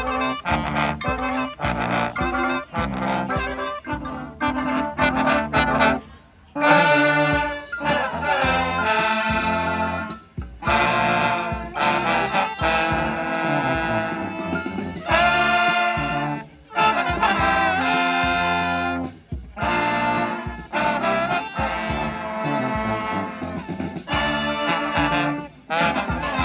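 A street brass band playing, with horns over a steady beat. After a brief break about six seconds in, the horns come in with loud held phrases.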